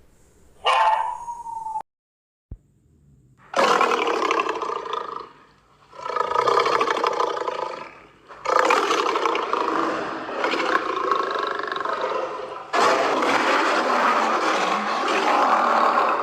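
A short falling animal call, cut off abruptly, then a run of loud, rough animal calls, each one to four seconds long, with short gaps between them.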